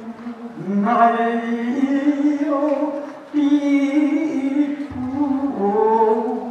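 Singing voices holding long, slow notes, each about a second or more, with short breaks about three and five seconds in.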